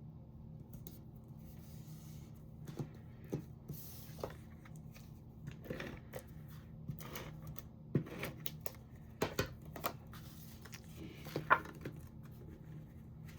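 Cardstock and paper being handled and pressed together: scattered rustles with light taps and clicks, the sharpest tap near the end.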